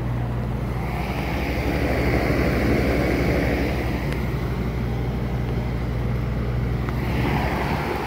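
Goodman 4-ton package heat pump running: a steady low hum with the even rush of its fan's airflow. The hum drops away near the end.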